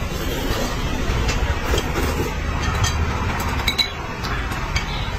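Noodles being slurped and eaten with chopsticks, which click against a glass bowl several times, over a steady low rumble.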